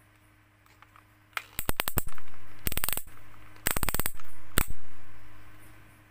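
Torque-adjustment collar of an INGCO 20V brushless impact drill being turned by hand, clicking through its detent settings in several quick runs of sharp clicks, starting about a second and a half in.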